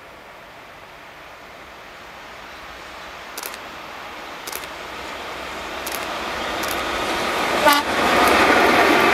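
Train approaching along the track, its rumble and rail noise growing steadily louder. A few light clicks come midway, then a brief sharp burst, and the train reaches the microphone loud near the end.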